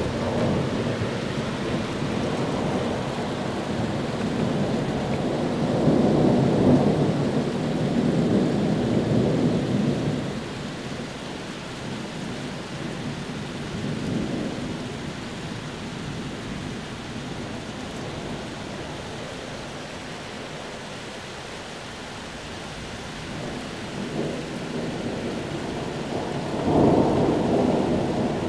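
Thunder rolling over steady rain. One long rumble swells about six seconds in and fades out a few seconds later. A sharper clap breaks in suddenly near the end.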